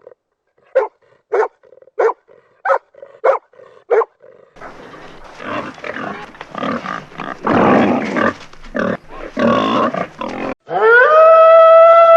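A run of different animal calls played one after another. First come short sharp calls about every two-thirds of a second, then a loud, rough grunting stretch. Near the end a long, held, pitched call begins.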